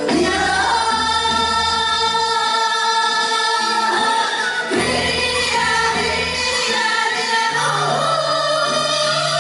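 Several women singing a Korean Gyeonggi folk song (minyo) together, in long held, wavering notes that slide between pitches, over a low steady accompaniment.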